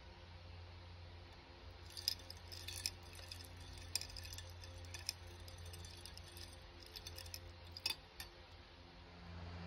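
Ice cubes clinking and rattling against the sides of a glass jar as the drink is stirred with a straw: a run of light, irregular clinks that starts about two seconds in and stops near the end.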